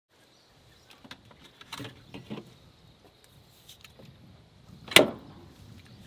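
Upright 12 V camping fridge (Bushman DC85-X) being handled: light knocks and rustles as a drink can is taken out, then one sharp, loud snap about five seconds in as the fridge door is shut.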